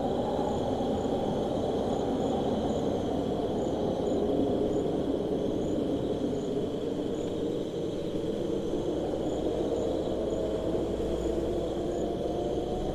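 Desert ambience: a low, steady rush of wind whose tone drifts slowly, under a continuous cricket trill and small, evenly repeated higher insect chirps.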